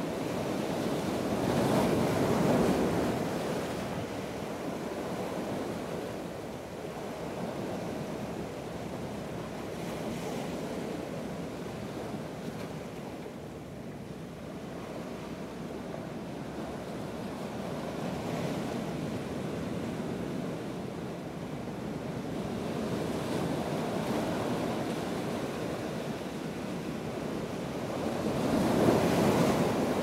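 Atlantic surf breaking against rocky ledges and washing back through the rocks, rising and falling, with the biggest breakers about two seconds in and again near the end.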